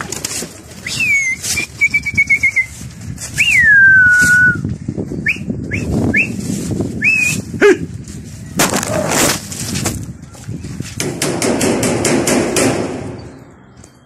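Domestic pigeon flock flying over the loft. In the first seven seconds come several whistles, including one long falling glide, and a few short rising chirps; from about eight seconds in there are bursts of rapid wing flapping.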